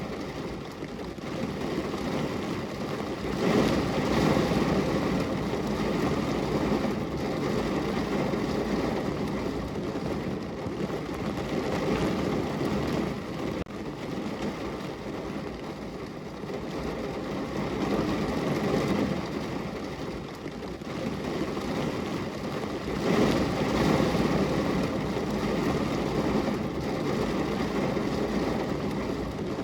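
Rain falling on a car window, a steady rushing patter that swells louder about three seconds in and again about twenty-three seconds in.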